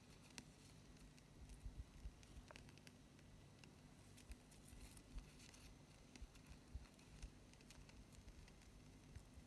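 Near silence: a low steady hum with faint scattered ticks from a metal tool being drawn across a satin ribbon leaf to press in its vein lines.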